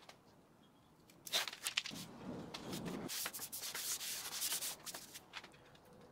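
MDF slats being slid and pressed down by hand onto the carpet-taped aluminum T-slot bed of a CNC router, making a scraping rub. It starts about a second in with a few knocks and lasts about four seconds.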